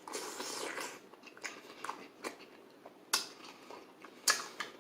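Close-up mouth sounds of a person biting and chewing sausage with cheese: irregular soft chewing with two sharper clicks in the second half.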